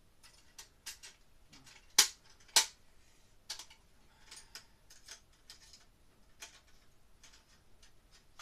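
Irregular small clicks and taps of hard tool pieces being handled and put away by hand, with two louder clacks about two seconds in.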